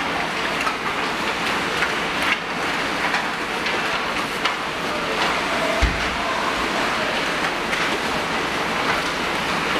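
Ice hockey players skating a drill: skate blades scraping the ice, with sharp clacks of sticks and pucks, and a dull thump about six seconds in.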